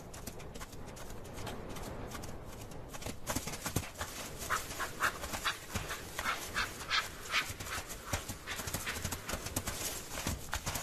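Chamois galloping in a rutting chase: fast, irregular hoofbeats on turf and snow, which become prominent about three seconds in.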